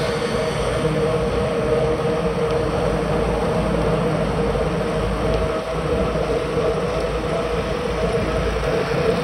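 Steady wind rumble and road noise from a bicycle riding along an asphalt road, with a steady hum running under it, heard through a bike-mounted action camera's microphone.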